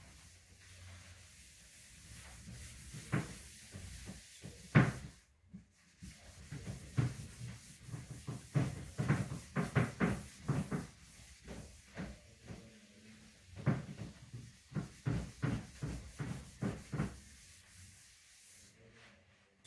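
Whiteboard being wiped clean by hand: a long run of quick rubbing strokes, thickest through the middle, with one sharp knock against the board about five seconds in.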